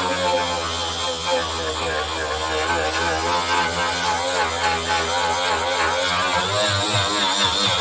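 Angle grinder running continuously, its whine wavering slightly in pitch as the disc grinds body filler and paint off a car panel down to bare metal.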